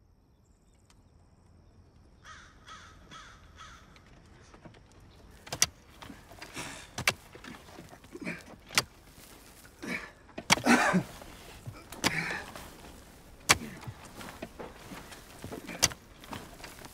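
A crow cawing in a quick series of calls, then a pickaxe striking into rocky dirt about six times, a sharp hit every couple of seconds, with soil and stones scraping and crumbling between the strikes.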